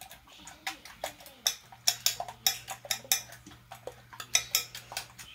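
Metal utensil clinking against a ceramic bowl while beating eggs: a quick, irregular run of sharp clicks, about two or three a second.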